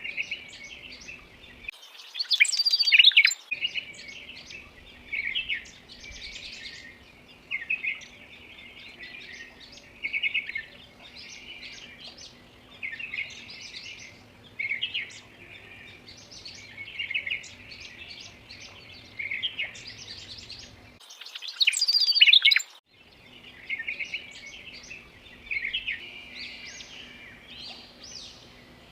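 Birds chirping and tweeting, short calls every second or two, with a louder flurry of chirps about two seconds in and again about twenty seconds in.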